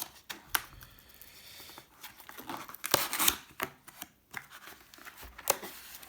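Packaging being handled: irregular clicks and knocks with rustling and crinkling as the boxed earbook album is shifted and pulled at.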